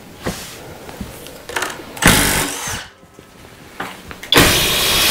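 Flex 24V cordless impact driver running with a long drill bit in wood, a loud steady run starting about four seconds in, with a high whine over it. Before it come a few handling knocks and a shorter, loud burst of power-tool noise about two seconds in.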